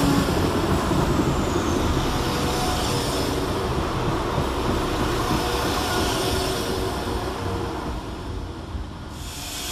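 Class 172 Turbostar diesel multiple unit arriving and running past along the platform: diesel engine and wheels on the rails. The sound eases off about eight seconds in as the last coach goes by.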